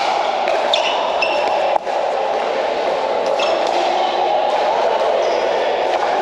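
Pickleball paddles hitting a hard plastic ball during a doubles rally, heard as sharp pops and short high pings, over a steady din in a large indoor hall.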